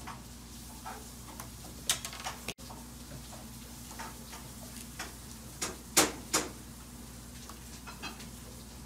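Small clicks and taps of plastic and metal parts being handled inside an opened LED aquarium light fixture, with a few sharper knocks about 2 and 6 seconds in, over a low steady hum.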